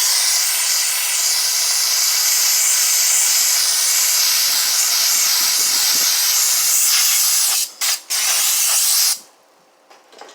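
Sandblaster blasting abrasive with compressed air, a loud steady hiss, used to strip rust from the corners of car body sheet metal. It cuts out twice briefly near the end and stops about nine seconds in.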